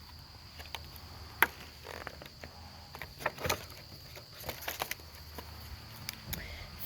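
Quiet handling noise: scattered small clicks and taps over a low steady hum, with one sharper tap about a second and a half in and a few more around three and a half seconds.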